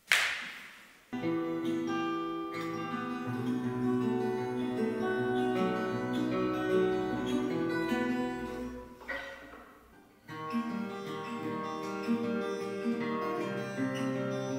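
Acoustic guitar music. A short hissing swell opens it, and a second swell just after nine seconds in is followed by a brief break of about a second before the guitar music starts again.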